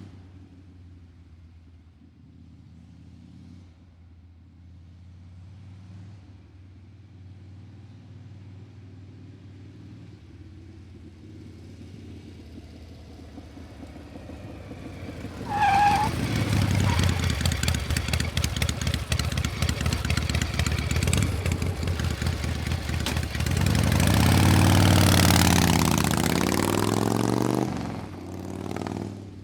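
Motor vehicle engine idling with a low hum, then revved hard about halfway through for roughly twelve seconds. The pitch rises toward the end of the revving, then the engine drops back to idle.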